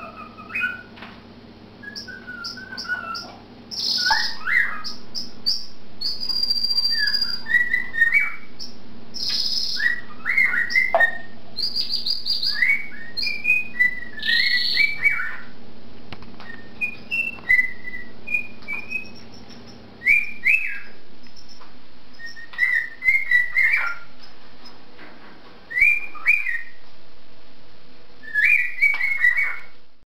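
Cockatiel whistling a melodic song of short, sliding whistled phrases, answered in the first half by a canary's brief high trills and chirps. The canary drops out about two-thirds of the way through, leaving the cockatiel's phrases with a few short peeps.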